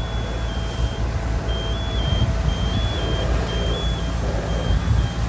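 Fire truck engine running with a steady deep rumble, over which a high electronic warning beeper sounds about once a second, each beep stepping between two close pitches.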